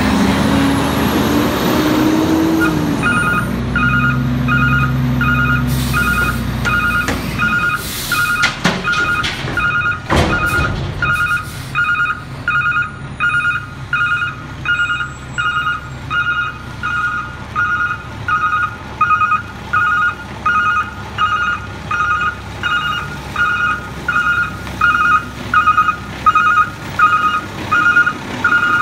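Freightliner Condor diesel garbage truck's engine revving up, then its reversing alarm beeping steadily, a little faster than once a second, over the engine running. A few sharp knocks come about a third of the way in.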